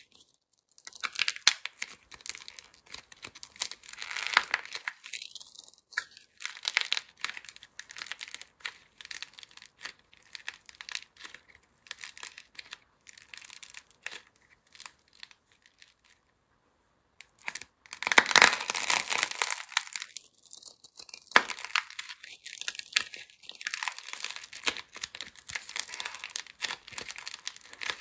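Soft, crumbly clay squeezed and pulled apart by hand, its dried glossy outer skin cracking and the clay tearing in dense, irregular crackles. After a short pause about two-thirds of the way through, the crackling comes loudest for a few seconds.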